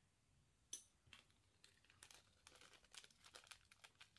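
Faint crinkling of a small clear plastic parts bag being handled by fingers, in short irregular crackles, the sharpest one just under a second in.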